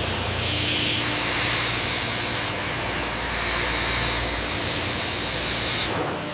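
Sawmill machinery running with a steady, even hiss over a low hum; the hum fades about four and a half seconds in, and the sound dips briefly near the end.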